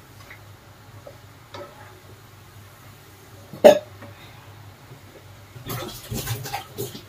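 Sev deep-frying in hot oil in a kadai with a faint sizzle. A perforated metal skimmer knocks once sharply against the pan about three and a half seconds in, then scrapes and clinks against it several times near the end.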